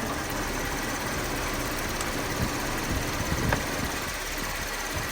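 Chevy Impala engine idling steadily while it charges a dead Jeep battery, with a few brief low thumps near the middle.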